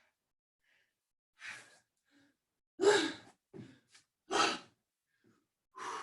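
A person breathing hard from exertion straight after a set of push-ups: several heavy, gasping exhalations about a second apart.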